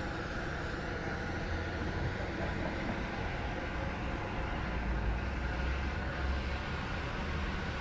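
Steady road traffic: vehicles passing with an even hiss of tyres and a low rumble that grows stronger about a second and a half in.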